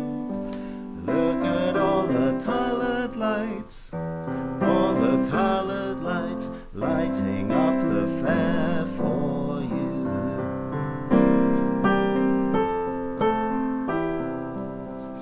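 Keyboard music with piano-like notes. For the first several seconds a wavering, vibrato melody sits over the chords; after that the notes are plainer and held.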